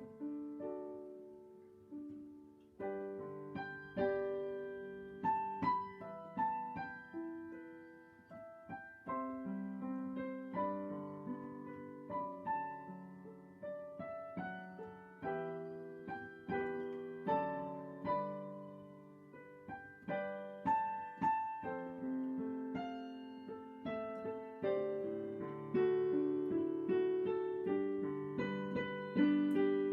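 Solo piano playing a slow, gentle piece in chords and melody, the notes struck and left to ring and fade.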